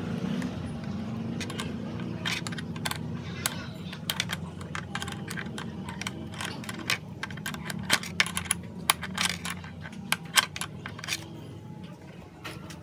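Irregular metallic clicks and clinks of an open-end wrench on a small 8 mm bolt as the motorcycle's headlight-cowl bolt is loosened in short turns, with a low steady rumble in the background.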